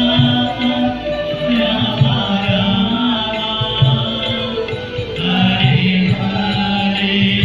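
Hindu devotional chanting sung to music at a Ganga Aarti, with a held low tone and a steady low beat beneath the voices.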